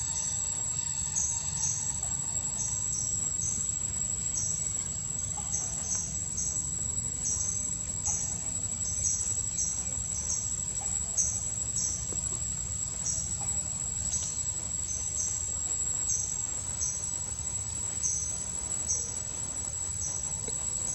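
Insects chirping: a short, high chirp repeating roughly every half second, slightly irregular, over a steady thin high tone and a low rumble.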